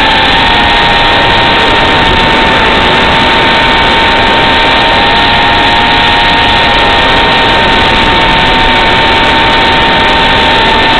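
Eachine Racer 250 quadcopter's brushless motors and propellers in flight, a steady whine holding one pitch over a loud hiss, as heard through the thin, noisy audio of the FPV video link.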